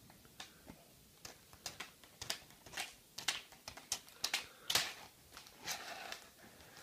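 Clear plastic packet crinkling and crackling as it is handled, in irregular little clicks.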